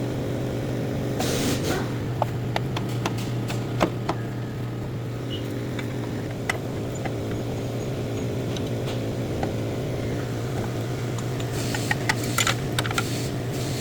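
A steady low machine hum starts right at the beginning, with scattered sharp clicks and knocks and two short hissing bursts, about a second in and near the end.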